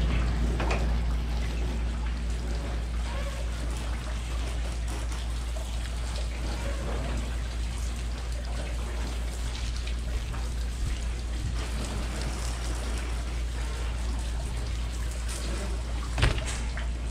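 Low-pressure water spraying from a garden-hose nozzle and splashing off a plastic boat fender as it is rinsed clean, with a steady low hum underneath. A short knock near the end.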